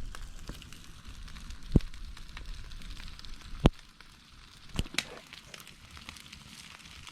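Cooking fire crackling with a steady hiss and many small pops, with a few sharp knocks about two, four and five seconds in.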